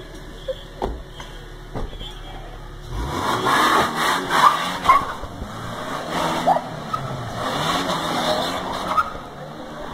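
Toyota Hilux SW4 police SUV pulling away, its engine revving up hard from about three seconds in and staying loud until near the end. A few light knocks come before it.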